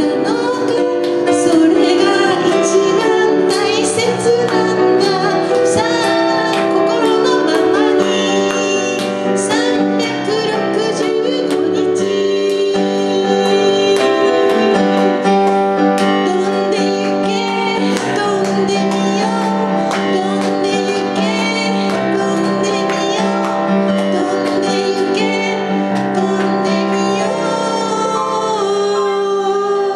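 A woman singing a slow pop ballad into a microphone, accompanied by a digital piano playing sustained chords.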